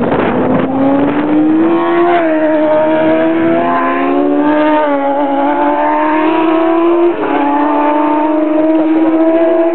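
Racing motorcycle engine at high revs under hard acceleration. The note climbs steadily and drops back at gear changes, most clearly about seven seconds in.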